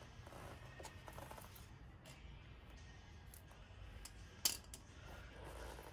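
Small metal tools and parts being handled on a concrete floor: a few faint clicks, then one sharp metallic clink about four and a half seconds in.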